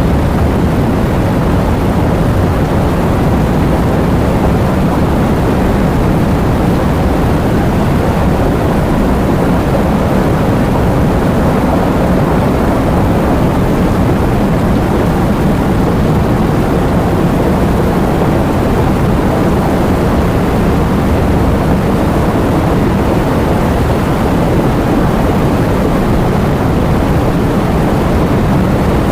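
Heavy rain falling in a steady, dense downpour, with a loud, even roar.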